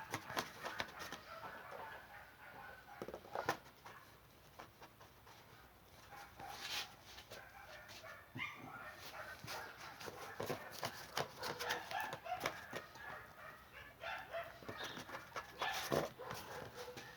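Faint animal calls, with scattered light clicks and knocks.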